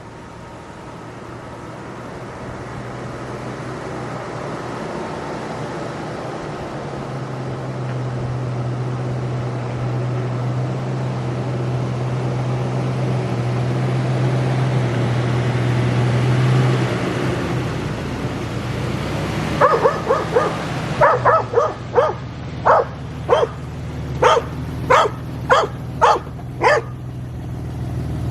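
Toyota 4Runner engine running steadily and growing louder, pulling a sugar pine log on a chain. In the last third a dog barks about a dozen times in quick succession.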